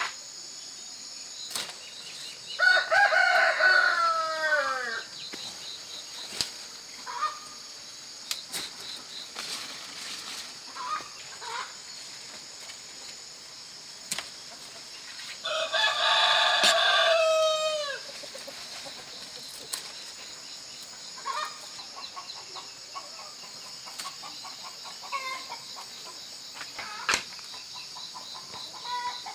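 A rooster crows twice, each crow two to three seconds long and dropping in pitch at the end, with a few short clucks in between, over a steady high insect buzz.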